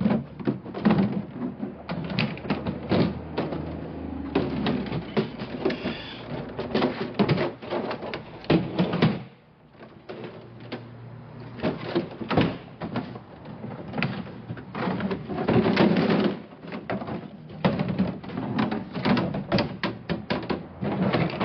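Repeated clattering and rattling of a flexible expandable skate-wheel roller conveyor, its metal wheels and scissor frame knocking as it is pulled out and set in place, with plastic totes bumping against it. There is a short lull about nine seconds in.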